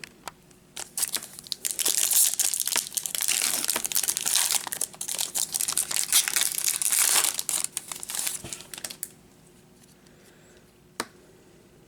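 Plastic wrapping on trading-card packaging being torn open and crinkled, a dense crackle lasting about nine seconds. It stops, and a single click follows near the end.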